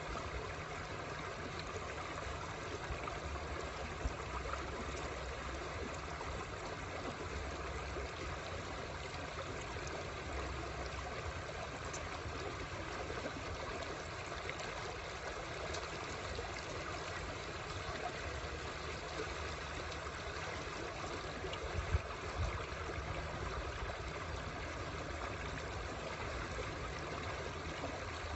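Shallow stream running over rocks: a steady, even rush of water, with a couple of brief knocks, one about four seconds in and another near the end.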